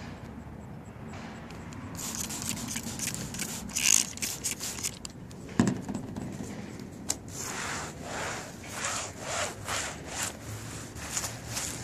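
Clay lube sprayed in a few hissing bursts and the bottle knocked down onto the hood. Then a fine-grade clay towel is scrubbed back and forth over wet car paint in scraping strokes, about two a second. The gritty rasp comes from the towel catching contamination bonded to paint that has not been clayed in about 15 years.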